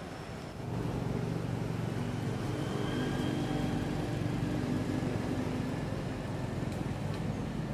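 A motor vehicle's engine running steadily, coming in sharply about half a second in with a low, even hum.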